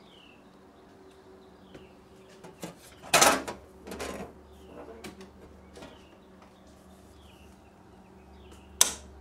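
Metal cover door of a home electrical breaker panel being opened, with a few clanks and rattles, loudest about three seconds in. Near the end a circuit breaker toggle is flipped with one sharp click.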